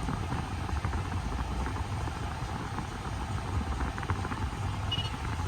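2016 Toyota 4Runner's 4.0-litre V6 idling with the air conditioning on max and the blower fan on high: a steady low engine hum under the even rush of air from the vents.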